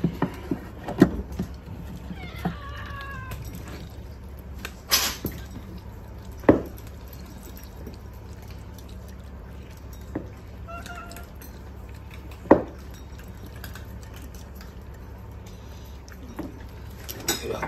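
A cat meowing twice: a longer meow about two to three seconds in and a shorter, fainter one near the middle. A few sharp knocks and clicks fall in between.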